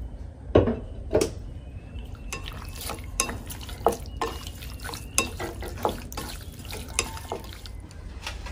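Wooden chopsticks stirring seasoned raw pork in a glass bowl, with irregular clicks and taps against the glass and a couple of louder knocks within the first second and a half.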